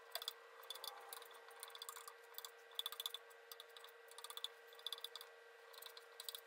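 Faint, irregular scraping and clicking of a metal 5-in-1 painter's tool spreading Bondo wood filler into dents on a wooden tabletop, over a steady faint hum.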